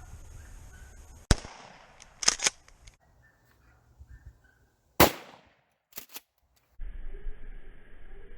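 Two shotgun shots about four seconds apart, each followed by a couple of quieter sharp clicks.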